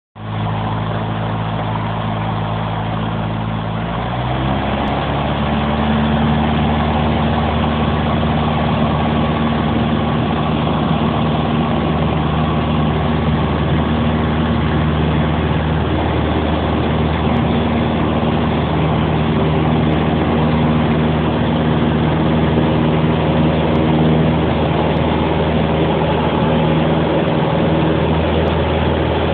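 Single-engine light aircraft's piston engine and propeller heard from inside the cockpit, steady and loud; about four seconds in the engine note steps up and gets louder as power is brought up for the takeoff roll, then holds steady at full power.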